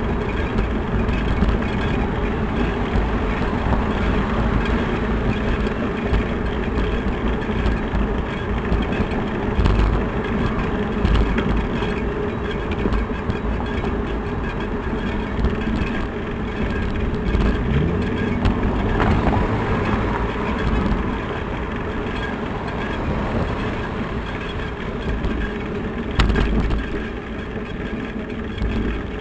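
Continuous rumble and rattle of a bicycle rolling over rough, cracked city pavement, carried into a bike-mounted camera, with a sharper knock near the end.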